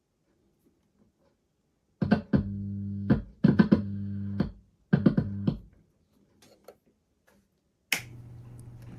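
Guitar strummed several times, each chord ringing for about a second, starting about two seconds in after near silence. A low steady hum starts near the end.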